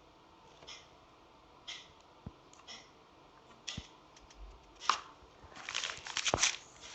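Faint scattered rustles and a few sharp clicks, like things being handled, getting busier and louder near the end.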